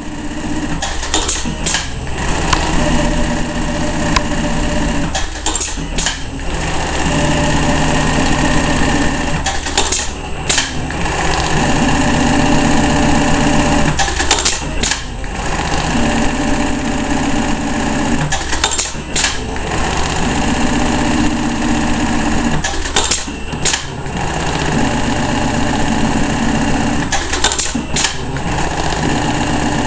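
Juki AMS-223C computer-controlled pattern sewing machine sewing a row of bartacks: runs of rapid stitching two to three seconds long, each ended by a few sharp clicks and a short pause, repeating about every four seconds over a steady low motor hum.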